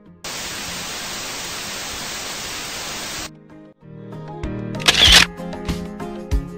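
A steady hiss of noise lasting about three seconds, a transition sound effect. Background music then starts, with a bright crash about five seconds in.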